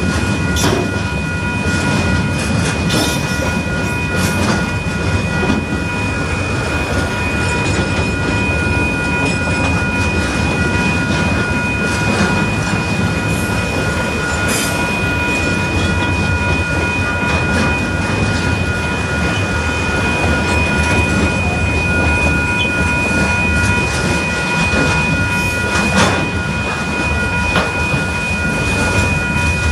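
Container freight train's wagons rolling past on the rails: a steady low rumble of wheels with scattered clicks and clanks. A steady high-pitched tone sits over it.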